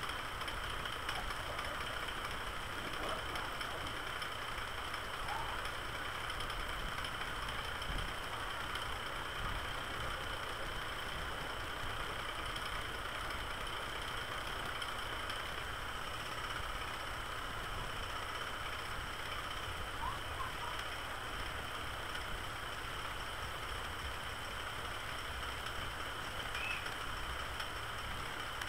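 Steady background hum and hiss picked up by the recording microphone, with no speech.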